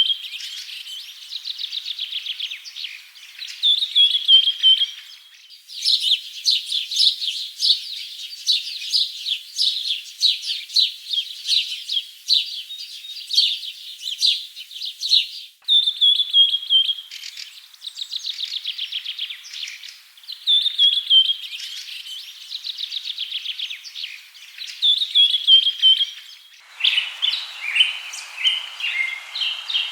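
Birds chirping: rapid trills and short falling whistled phrases, repeated again and again, with abrupt cuts to another stretch of song three times. In the last few seconds a harsher, lower chatter takes over.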